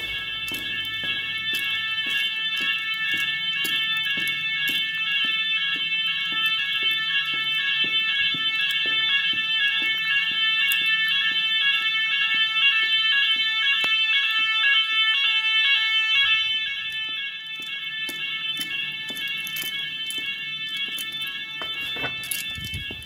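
Fire alarm evacuation sirens of a Chubb type 2a fire safety system sounding continuously with a steady, piercing high-pitched tone. The alarm becomes quieter about two-thirds of the way through, and a thump comes near the end.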